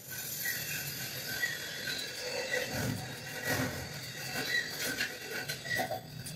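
Light knife taps on a cutting board from vegetable chopping, under a short high chirp that repeats about twice a second.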